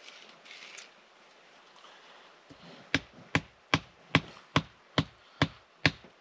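A wooden stick being pounded into the stony riverbank: eight sharp knocks, evenly spaced at a little over two a second, starting about three seconds in.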